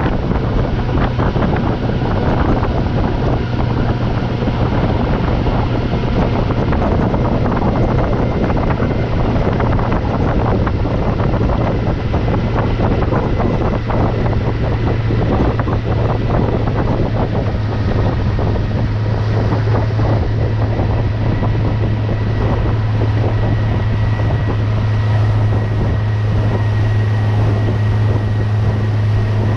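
Mercury 60 hp outboard motor running steadily with the boat under way, its engine note holding even, with wind buffeting the microphone and water rushing past the hull.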